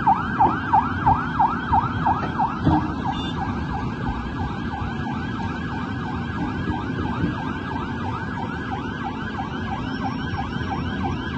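Emergency vehicle siren in a fast yelp, rising and falling about three times a second, loud at first and fainter after about three seconds, over a steady low rushing noise.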